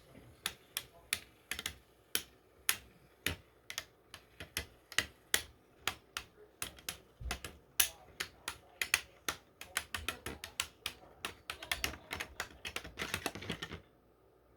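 3D-printed Beyblade spinning tops clashing in a stadium, a run of sharp plastic clicks a few times a second that come quicker later on and stop suddenly near the end. This is a stamina battle, the tops knocking together as they slow down until the spinning ends.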